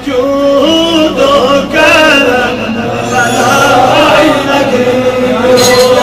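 A man singing a naat, a devotional poem in praise of the Prophet, as a solo voice chant in long, ornamented melodic lines. Near the end he holds one long steady note.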